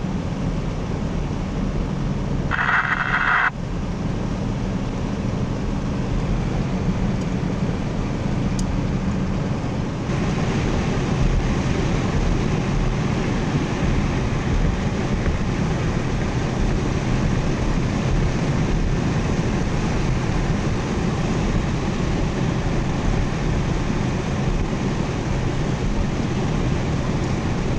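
Interior road noise of a four-wheel-drive vehicle driving on a wet road: a steady engine and drivetrain hum with tyre hiss, a little louder from about ten seconds in. A brief higher sound breaks in about three seconds in.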